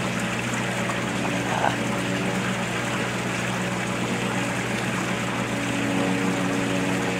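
Water poured from a plastic jerry can onto a freshly laid Aquaphalt pothole patch, wetting the water-activated cold-patch mix so that it hardens. It sounds under a steady low mechanical hum.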